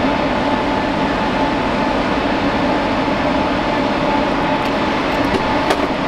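Rack-mounted servers' cooling fans running with a steady whir and a constant hum. A single sharp click comes near the end.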